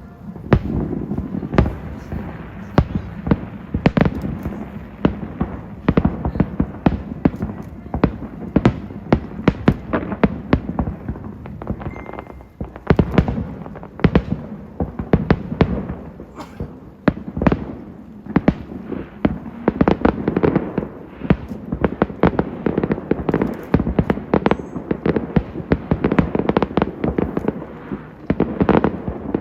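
Fireworks going off continuously: a dense run of sharp bangs and crackles, several a second, over a steady rumble from the bursting shells.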